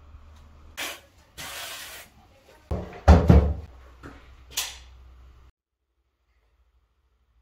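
Door or cupboard being handled: a sharp clack, a short scrape, then several heavy thumps and knocks and one more clack, before the sound cuts off suddenly.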